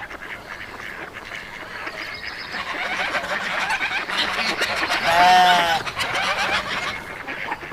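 Farm animal calls: a busy background of short chattering calls, then one loud, drawn-out pitched animal call about five seconds in, lasting under a second.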